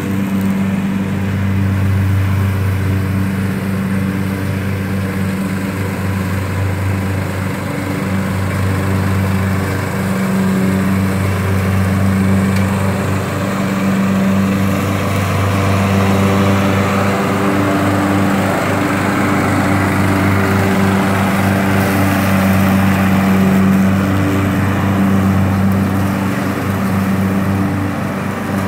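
Riding lawn tractor's engine running steadily under load with its mower deck cutting tall, thick grass, the engine note shifting slightly in pitch and loudness.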